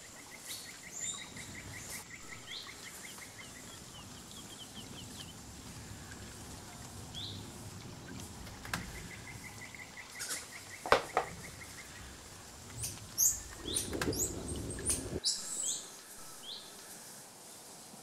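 Forest birds trilling and chirping, with sharp knocks of wood on wood: one loud knock about eleven seconds in, then a quick run of knocks and scraping. The knocks are a capuchin monkey working a log with a piece of tree bark, added as Foley.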